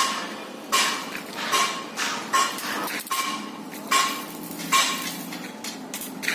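A hammer striking metal in steady, evenly spaced blows, about one every 0.8 seconds, each with a short metallic ring. The last few blows are lighter and quicker.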